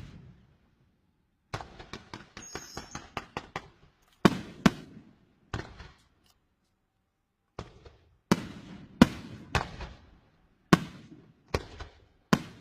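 Fireworks going off from a cart in a ragged series of sharp bangs, each with a short echoing tail. A quick flurry of crackling pops comes about two seconds in, and the bangs follow in ones and twos every half second to a second.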